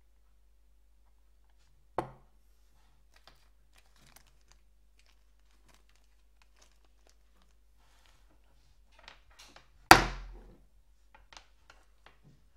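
Two sharp knocks of parts being set down on a wooden tabletop, about two and ten seconds in, the second the louder, with light crinkling and ticking of a small plastic bag of bolts being handled in between.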